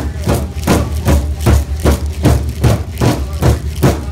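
A large drum beaten by a circle of seated drummers in a steady even beat, about two and a half strokes a second, over the low steady hum of the riverboat's engine.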